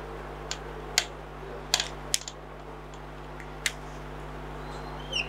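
Whiteboard marker tapping against the board while Arabic letters, dots and vowel marks are written: about five sharp, irregular ticks over a steady low hum.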